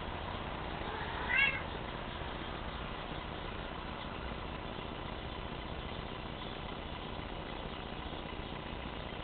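A young Bengal cat gives one short meow about a second and a half in.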